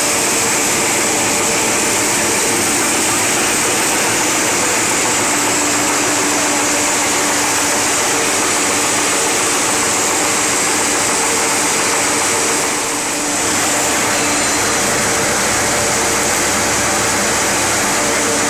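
Puff snack extruder machine running steadily: a loud, even mechanical hiss with a few steady hum tones underneath, dipping briefly about two thirds through.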